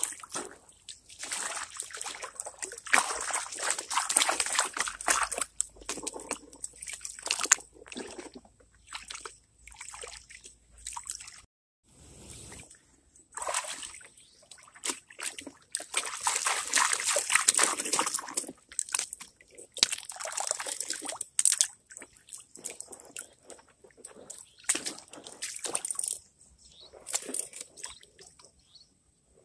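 Water sloshing and splashing in a gold pan as it is swirled and dipped in shallow river water to wash gravel down to concentrate. It comes in irregular surges with short pauses and a brief break about a third of the way in, and grows quieter and sparser near the end.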